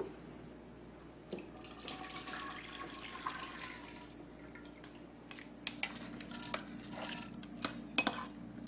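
A watery rice and onion mixture poured from a glass bowl into a glass baking dish: a soft splashing pour, then a spatula scraping and clicking against the glass several times near the end. A low steady hum runs underneath.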